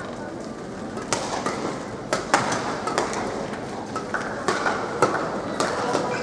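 Badminton rally: sharp cracks of rackets striking the shuttlecock, coming irregularly from a few tenths of a second to about a second apart, mixed with players' footfalls on the court, over a steady haze of arena noise.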